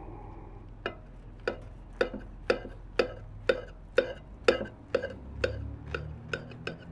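A knife sawing back and forth through a burger and its toasted bun on a ceramic plate, a short crisp scrape with each stroke, about two a second.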